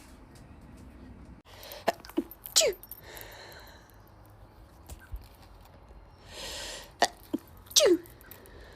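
A woman sneezing twice, about five seconds apart. Each sneeze comes after a drawn-in breath with a couple of short catches and ends in a loud voiced 'choo' that falls steeply in pitch.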